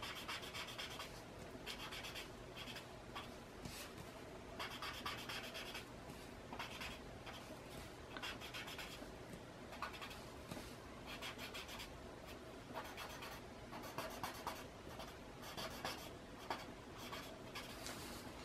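Faint, scratchy rubbing of a paper blending stump (tortillon) worked over drawing paper in repeated short strokes, blending graphite shading.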